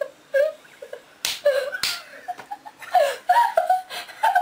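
Two girls laughing in short fits, with two sharp slaps about half a second apart near the middle.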